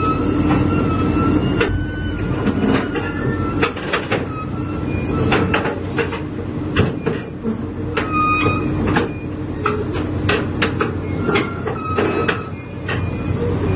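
Komatsu PC200 hydraulic excavator's diesel engine running steadily while the machine crawls onto a truck's steel bed, its steel track links clanking and squealing against the deck in repeated sharp clicks and short squeals.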